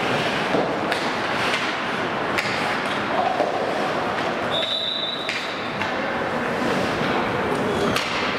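Ice hockey play in an echoing indoor rink: a steady scraping hiss of skates on ice, broken by sharp clacks of sticks and puck several times. A brief high tone sounds about four and a half seconds in.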